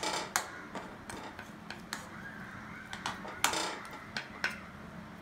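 Metal spoon and spatula scraping and clinking against a metal kadai as a thick, wet poppy seed halwa mixture is stirred, with irregular sharp clinks among the scrapes.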